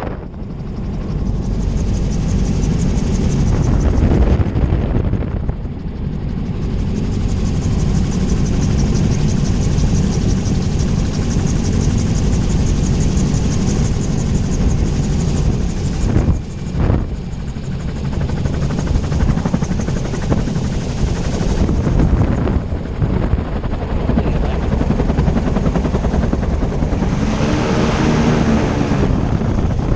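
Gyroplane on approach and landing, heard from its open cockpit: a steady rush of wind and rotor noise, with a brief wavering whine near the end.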